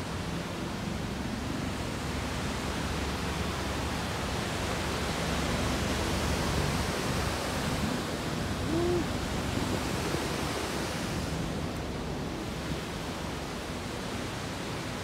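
Steady rush of water, an even noisy roar with no rhythm, swelling slightly in the middle.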